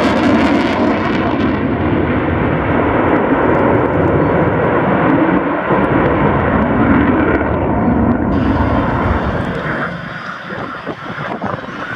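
Lockheed Martin F-22 Raptor's twin Pratt & Whitney F119 afterburning turbofans running loud in a demonstration pass, a steady jet rumble whose hiss fades over the first couple of seconds as it moves away, getting quieter near the end.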